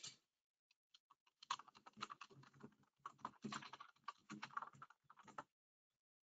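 Faint typing on a computer keyboard: a quick, uneven run of keystrokes starting about a second and a half in and stopping near the end.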